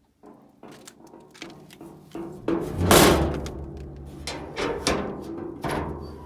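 A string of hollow knocks and thuds, each ringing briefly, with one heavy thud about three seconds in: containers of collected drinking water being handled and set down.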